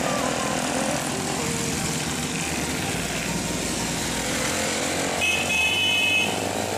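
Motorcycle engine running under way with wind noise on the microphone, other motorcycles riding close by. A short high-pitched tone sounds for about a second, about five seconds in.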